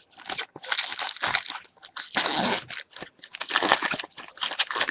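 A foil trading-card pack wrapper crinkling and tearing open, in a string of irregular crackling bursts.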